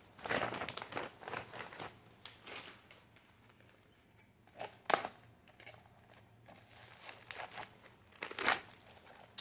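Plastic packaging crinkling and rustling as it is handled, busiest in the first two seconds, with a sharp crackle about five seconds in and another near the end.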